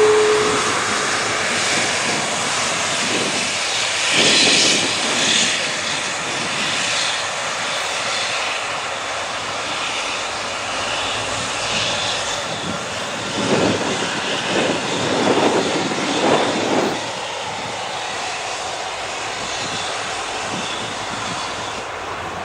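Twin jet engines of a Boeing 777 airliner running at low thrust as it taxis: a steady rushing jet noise, swelling louder about four seconds in and again for a few seconds past the middle.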